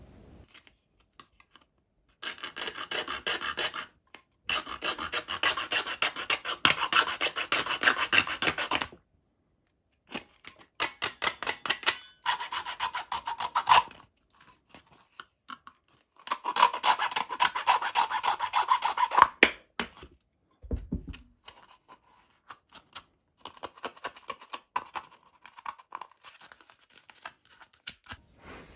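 A fine-toothed hand saw cutting through a plastic funnel in quick back-and-forth strokes, in several runs with short pauses between. A brief dull knock about two-thirds of the way through, then softer, sparser scraping strokes.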